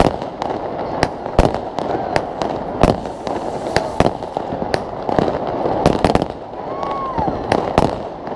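New Year's Eve fireworks going off: an irregular series of sharp bangs, about two or three a second, over a steady background din, with a couple of short whistling glides.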